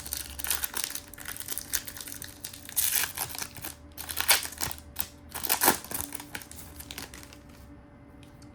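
Topps Chrome trading cards and their foil pack wrapper being handled, crinkling and rustling in short bursts that die down about six seconds in.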